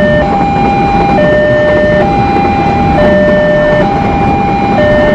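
Railway level-crossing warning alarm sounding a steady two-tone chime that swaps between a higher and a lower note about once a second. Under it runs the continuous wheel-on-rail noise of a container freight train passing the crossing.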